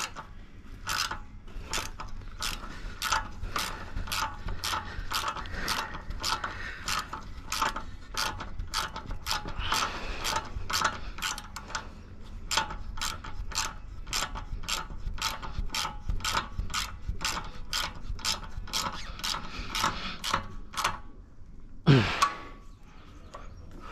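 Ratchet wrench clicking in steady strokes, about two a second, as the radiator's mounting bolts are tightened. The clicking stops about 21 seconds in, and a brief loud sound falling sharply in pitch follows.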